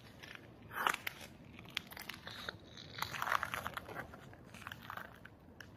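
Footsteps crunching on a gritty concrete floor, with scattered clicks. The loudest crunches come about one second in and again about three and a half seconds in.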